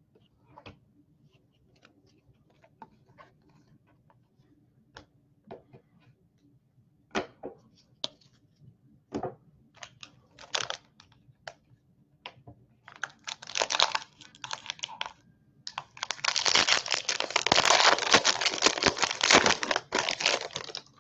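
Light clicks and rustles of card packs being handled, then the foil wrapper of a baseball card pack crinkling and tearing open. A short burst of it comes about two-thirds of the way in, and a longer, louder stretch near the end.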